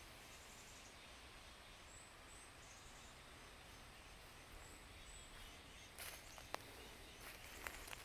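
Quiet woodland with faint high chirps in pairs every few seconds. About six seconds in, footsteps start crunching on dry leaf litter and twigs, with a couple of sharp snaps.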